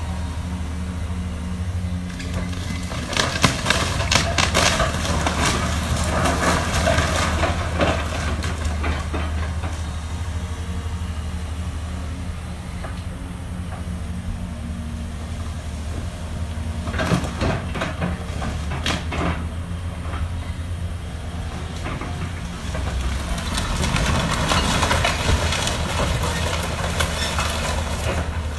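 House demolition: a heavy machine's engine runs steadily while debris crunches and clatters in several louder bursts.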